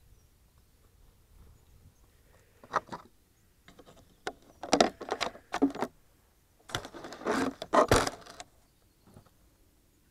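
Handling noise right at the onboard camera's microphone: a hand touching and moving the model glider that carries the camera, giving short scrapes and rubbing in three bouts, the loudest about five and eight seconds in.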